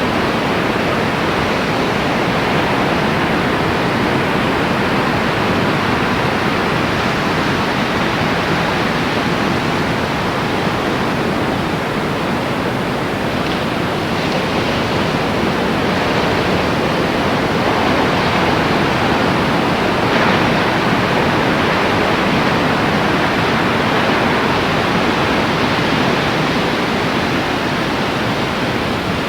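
Steady, loud rushing noise that holds even throughout, with no distinct events.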